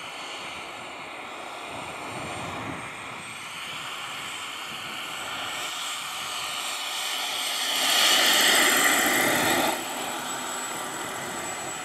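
Radio-controlled scale Kamov Ka-32 helicopter flying, its rotor and motor noise growing louder as it approaches. It passes low and close about eight seconds in, loudest for about two seconds, then the sound falls away suddenly.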